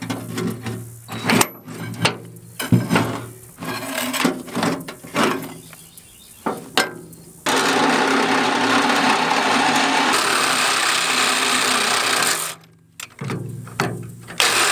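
Reciprocating saw cutting through a stripped steel mounting bolt on a rotary mower's gearbox. For the first several seconds it goes in short, stop-start strokes. About seven seconds in it runs steadily and loudly for about five seconds, stops briefly, then cuts again in shorter bursts.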